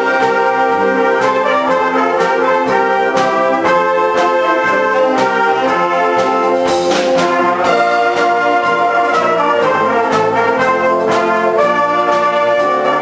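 Concert wind band playing: trumpets, trombones, saxophones and tubas hold sustained chords over regular percussion strokes.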